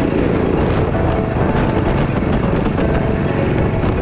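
Background music over steady wind rushing on the microphone of a moving motorbike or scooter.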